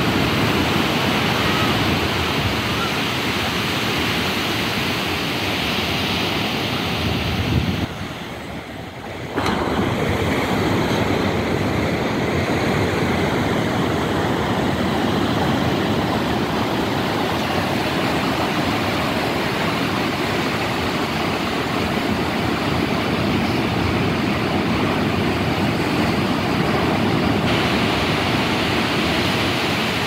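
Sea surf breaking and washing up a sandy beach: a steady rush of waves. It briefly drops away and comes back about eight seconds in.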